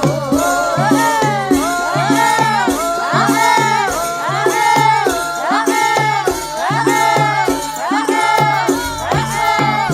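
Javanese gamelan music playing, with a steady percussion beat under a melody full of rising and falling pitch glides.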